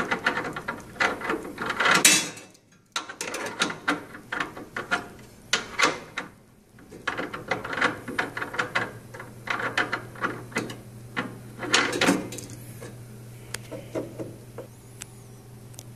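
Irregular metallic clicks, taps and clatter of nuts and parts being fitted by hand under the stainless-steel tray of a Zummo Z14 citrus juicer, over a faint steady low hum.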